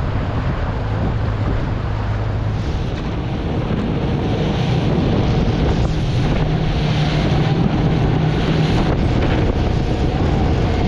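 Boat motor running under way, its pitch rising about three seconds in, with wind buffeting the microphone and water rushing past the hull.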